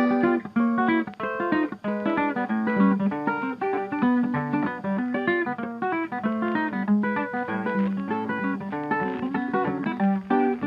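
Background music: a run of quick plucked guitar notes at a steady level.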